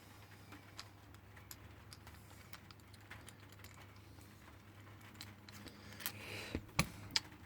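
Scattered small clicks and taps of an Allen key working at a padlock's hex screw, with a few sharper clicks near the end.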